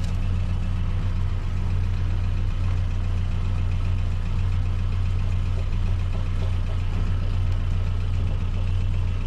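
Pickup truck engine idling steadily with a low, even hum.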